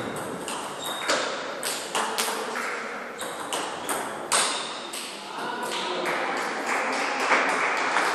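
Table tennis ball clicking sharply and irregularly off bats and table.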